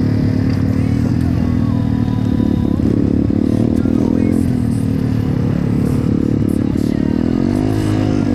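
BSE pit bike's small single-cylinder four-stroke engine running under way, its pitch easing off a little around the middle and rising near the end as the throttle is opened.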